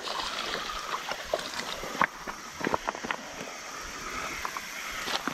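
Shallow creek water trickling and gurgling over stones, with scattered short clicks and knocks.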